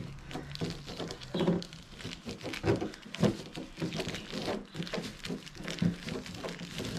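Thin plastic sheeting crinkling and rustling as it is unfolded and handled, a dense run of irregular crackles.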